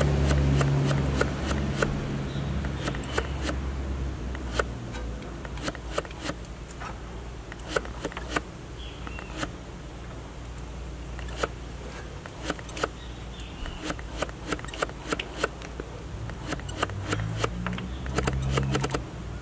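Irregular light clicks and taps, some in quick runs, from handling a borescope and the phone showing its view, over a low hum that fades after a few seconds and comes back near the end.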